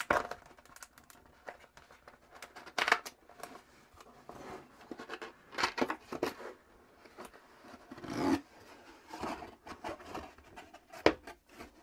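Cardboard graphics-card box being opened by hand: a string of short scrapes and rubs of cardboard on cardboard, with a few sharp clicks, as the lid is worked loose and lifted off the inner box.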